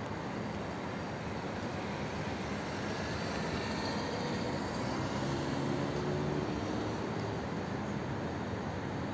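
Steady rumble of outdoor street traffic, with a vehicle engine's hum swelling and fading about five to seven seconds in.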